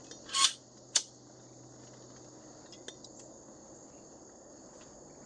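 Insects trilling steadily in a high, even drone. Near the start come a short rustle and a single sharp click, and a few faint ticks follow a couple of seconds later.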